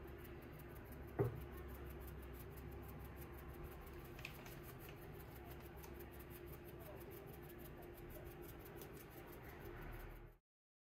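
Faint room tone with a steady low hum and one soft knock about a second in, cutting to silence near the end.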